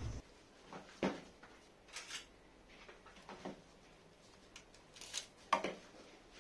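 Leafy greens being picked over by hand beside a plastic colander: a handful of scattered soft rustles and light knocks, the sharpest about a second in and again about five and a half seconds in.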